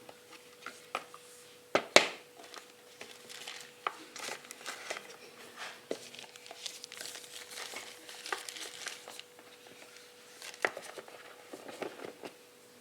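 Packaging crinkling and rustling as it is handled, with scattered taps and clicks; a sharp click about two seconds in is the loudest.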